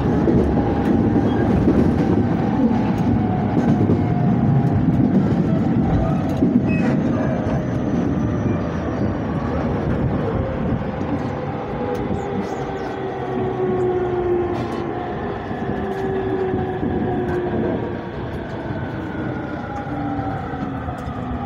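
Electric commuter train slowing into a station, heard from inside the car: a steady rumble of wheels on the rails that eases off, under a motor whine that falls steadily in pitch as the train brakes.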